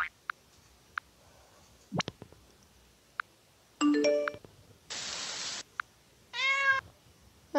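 Keyboard app key-sound previews played from the phone in turn: a few faint single ticks, a short electronic tone about four seconds in, a hiss about five seconds in, then a cartoon cat meow near the end.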